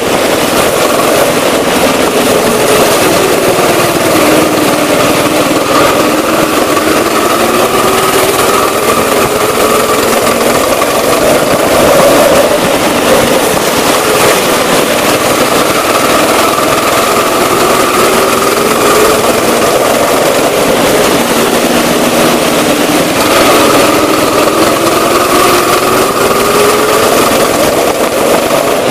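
Small go-kart engine running hard through a lap, heard from the driver's seat. Its pitch falls and climbs back again about three times as the kart slows for bends and accelerates out.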